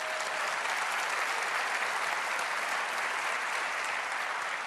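Large audience applauding, a dense and even clapping at a steady level.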